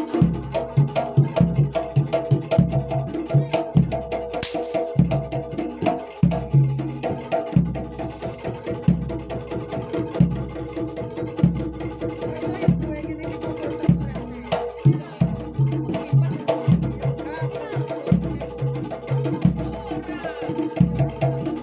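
Jaranan Dor ensemble music: a jidor bass drum strikes a deep beat a little more than once a second, under hand-drum strokes and steady ringing pitched tones.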